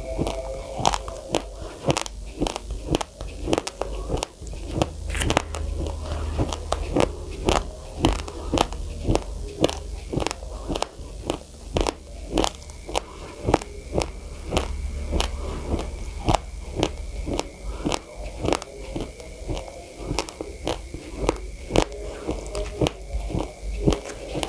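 A person chewing a full mouthful of raw, uncooked white rice close to the microphone: an irregular run of sharp crunches, about two a second, as the dry grains crack between the teeth.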